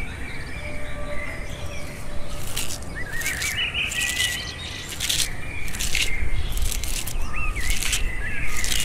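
Shredded raw cabbage being squeezed and tossed with salt by hand in a small clay bowl: a crisp rustle a little more than once a second, starting about two seconds in. Small birds chirp throughout.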